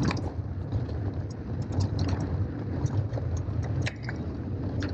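Mountain bike tandem rolling down a rocky dirt singletrack: a steady low rumble of wind and tyres on the trail, with scattered clicks and rattles of gravel and the bike.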